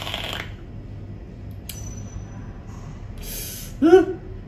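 A drag on a vape with a dripping atomizer, its airy hiss ending about half a second in. About three seconds in comes an airy exhale, followed by a short pitched vocal sound near the end.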